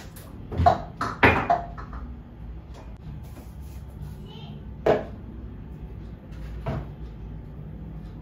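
A few sharp knocks and clacks from household chores: two loud ones close together about a second in, another near five seconds and a softer one near seven.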